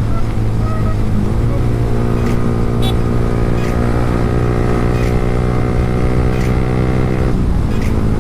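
Yamaha R15 V3's 155 cc single-cylinder engine running at a steady cruise under the rider, its pitch holding even, then dipping and changing about seven seconds in.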